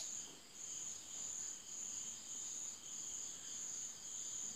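Faint high-pitched chirring of insects in the background, pulsing steadily on and off, with a soft click right at the start.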